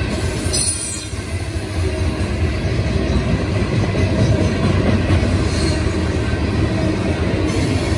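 Loaded coal hopper cars of a freight train rolling past: a steady, loud low rumble of steel wheels on the rails, with a brief high-pitched noise about half a second in.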